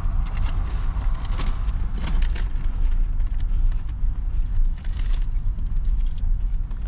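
Steady low rumble of a car idling, heard from inside the cabin, with scattered light crackles and clicks.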